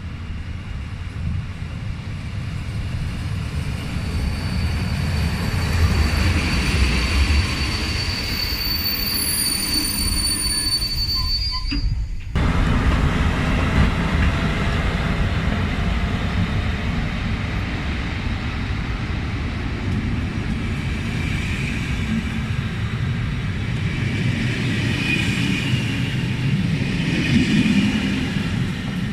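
Train running past on the track with a steady rumble of wheels on rails. A high, steady whine sounds for a few seconds before the sound cuts abruptly about twelve seconds in to another passing train's rumble.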